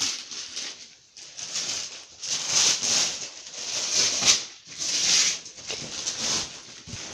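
Paper and gift wrapping rustling and crinkling in irregular bursts as a present is unpacked by hand.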